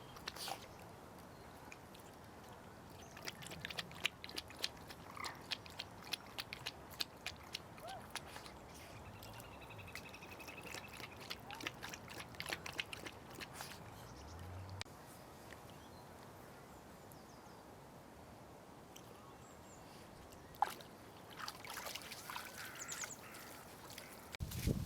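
Ducks and other waterbirds calling now and then, with a run of crisp footsteps on the path, about four steps a second, over the first half.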